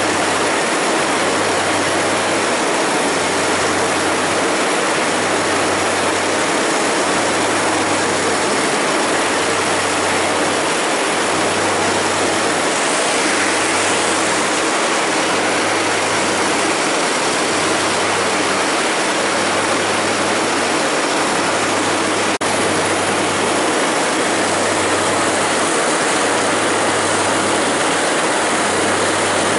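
Heavy farm machinery at silage harvest running steadily: a loud, even rush of noise with a low hum that pulses about once every second and a half.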